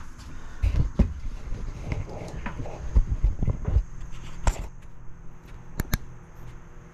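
Footsteps and knocking thumps on a sailboat's wooden companionway steps as someone climbs out of the cabin, with a few sharp knocks, over a low steady hum.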